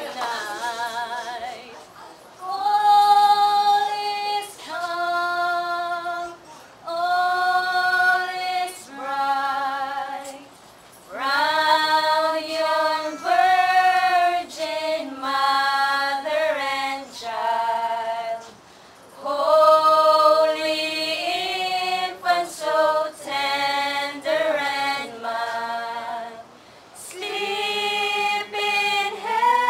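A group of carolers, mostly women's voices, singing a slow Christmas carol in long held phrases, with short pauses for breath between them.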